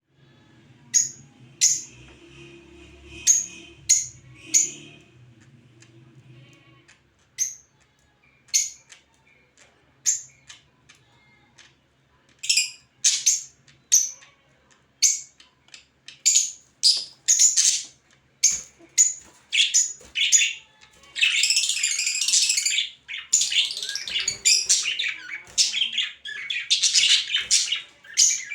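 A pair of cockatiels calling: short, sharp chirps about once a second, crowding into dense, near-continuous chattering about twenty seconds in. A faint low hum sits under the first seven seconds.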